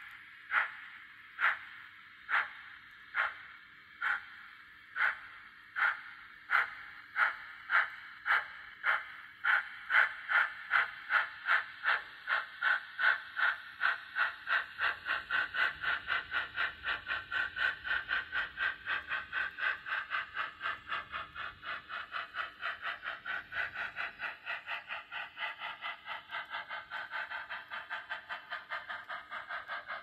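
Sound-fitted N gauge model of a Stanier 8F steam locomotive, its speaker playing exhaust chuffs as it pulls away: single beats about a second apart that quicken steadily to several a second, growing a little fainter near the end as it moves off.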